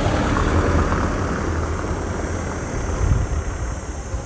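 Wind buffeting a handheld microphone, a low uneven rumble over general outdoor street noise, with a stronger gust about three seconds in.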